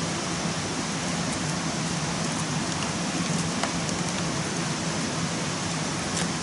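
Steady rushing noise with a low hum underneath and a few faint clicks.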